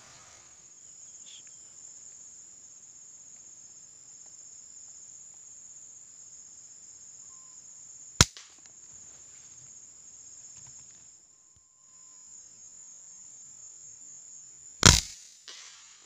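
Two sharp air rifle shots several seconds apart, the second louder, over a steady high-pitched drone of insects.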